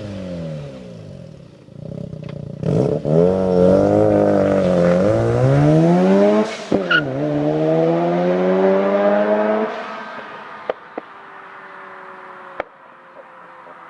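Mazda RX-7 Turbo II's 13B twin-rotor turbo engine through a 3-inch straight exhaust with an HKS Silent Hi-Power muffler and test pipe, pulling hard through the gears: the revs climb, dip at two gear changes and climb again. About ten seconds in it lets off and the sound falls to a low drone.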